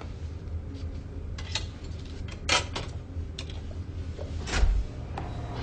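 Low steady hum of a quiet room, broken by a handful of light clicks and knocks. The loudest come about two and a half seconds in and about four and a half seconds in, the second with a dull thump.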